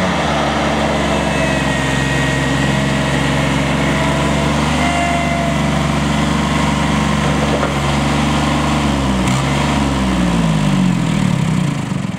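John Deere 4100 compact tractor's small three-cylinder diesel engine running steadily as the tractor drives. About nine seconds in the engine note dips, then climbs over the next couple of seconds, and it falls away right at the end.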